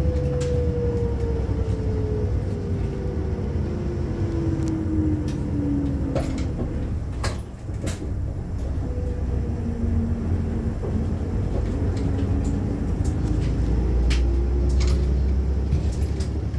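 Inside a moving route bus: steady low engine and road rumble with a whine that falls in pitch as the bus slows over the first six seconds, then rises again as it picks up speed. Scattered rattles and clicks come from the cabin fittings.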